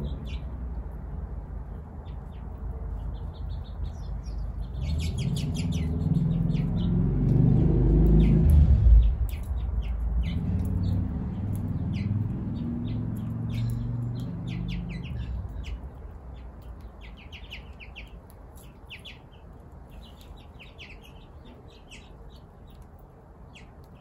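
Small birds chirping and twittering. A low engine hum swells and fades under them, loudest about a third of the way through and gone a little past halfway.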